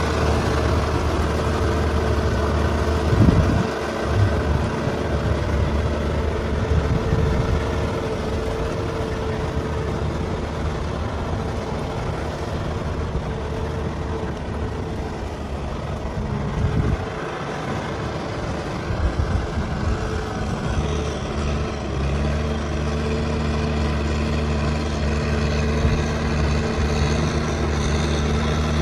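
Kubota M6040 SU tractor's diesel engine running steadily, with one short knock about three seconds in. From about two-thirds of the way through, the engine note becomes fuller and steadier.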